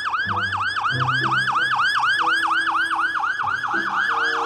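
Police car siren in a fast yelp, a wail sweeping up and down about seven times a second.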